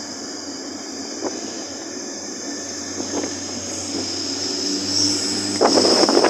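Class 180 diesel multiple unit's engines running steadily as it draws away from the platform. About five and a half seconds in, wind starts buffeting the microphone and becomes the loudest sound.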